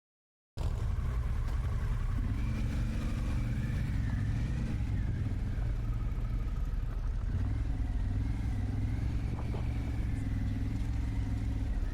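Harley-Davidson Pan America 1250 Special's V-twin engine running steadily while riding, cutting in abruptly about half a second in. It is a low rumble whose pitch drifts gently up and down.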